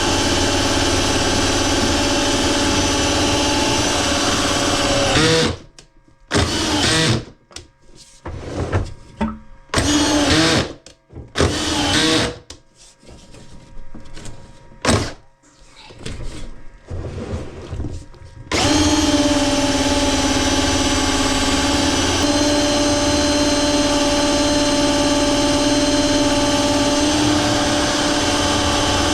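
Electric motor of a drain-cleaning snake machine spinning its cable in a sewer line: it runs steadily, then is stopped and restarted in a string of short bursts for about thirteen seconds, then runs steadily again.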